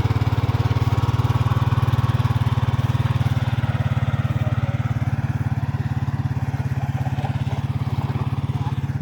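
An engine running steadily close by, with an even, rapid pulse.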